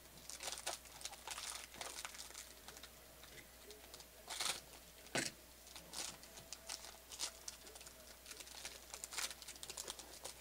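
Foil wrapper of a Panini basketball card pack crinkling and tearing as it is ripped open: a faint, irregular string of sharp crackles, loudest about halfway through.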